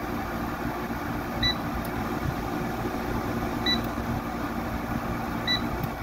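Electrolux-built Frigidaire 6500 BTU window air conditioner running, its fan giving a steady, somewhat noisy whir. Three short electronic beeps from its control panel sound about two seconds apart as its settings are changed.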